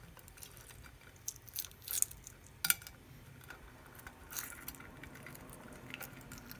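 Cracked eggshell being picked and peeled off a hard-boiled egg by fingers: faint scattered crackles and small clicks of shell pieces coming away, the sharpest about two and a half seconds in.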